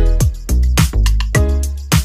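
Background music with a steady beat and deep drum hits about twice a second.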